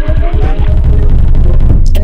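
Electronic background music with a fast, steady beat and a rising synth sweep in the first part.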